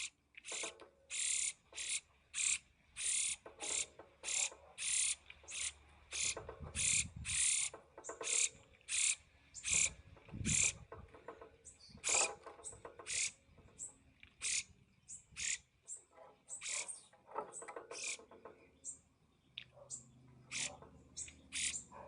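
Brown-headed cowbird fledgling begging: short, raspy calls repeated about twice a second, the insistent food-begging of a young bird being fed by a foster parent.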